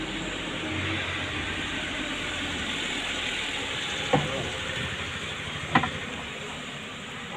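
Two sharp knocks on the wooden hull of a dugout canoe as a wet cast net is stowed in it, about four and six seconds in, over a steady hiss.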